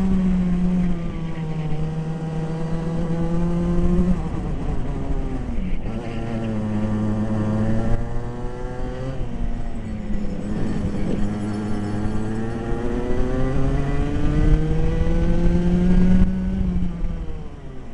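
Onboard sound of a Dmax racing kart's engine under power through a lap. The engine note climbs as it accelerates and drops as the driver lifts off for corners, about four times, over constant rumble and wind noise.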